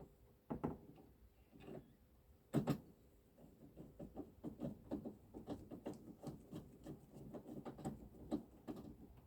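Clicks and knocks of hand tools and trim parts during reassembly of a tailgate: one loud knock about two and a half seconds in, then a steady run of small clicks, about three a second, typical of fastening screws.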